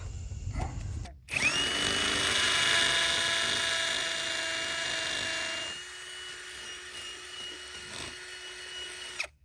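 Power drill boring into a brick wall's mortar joint to take a trellis anchor, running with a steady whine. It starts abruptly, runs loud for about four seconds, then drops to a quieter, lower whine before cutting off sharply near the end.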